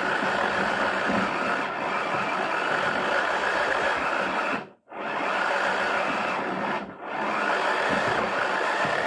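Toy washing machine's small electric motor running steadily, with balls tumbling in its drum. The sound cuts out briefly just under five seconds in and dips again about two seconds later.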